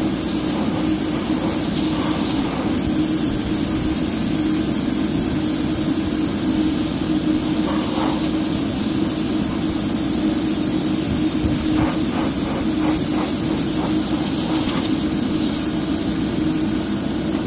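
Airbrush rig running steadily: a constant hum with a high hiss of air and thinned paint misting from the airbrush.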